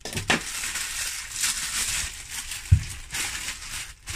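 Plastic bread bag crinkling and rustling as frozen bread is handled, with one dull thump about two and a half seconds in.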